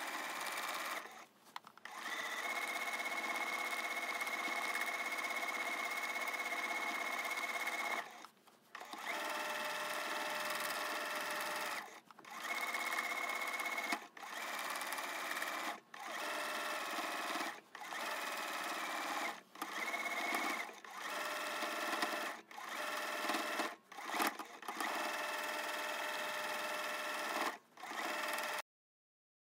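Domestic sewing machine free-motion quilting with a spring-loaded quilting foot, running fast in long steady runs, then in shorter runs with brief stops every second or two as the quilt is repositioned. It cuts off abruptly near the end.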